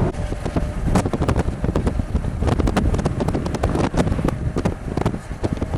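Strong, gusty hurricane wind buffeting the microphone in rapid, irregular thumps over a steady rush.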